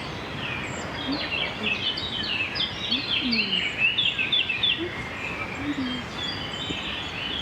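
Birds chirping in a dense, chattering run of short calls, busiest through the middle few seconds, over steady outdoor background noise.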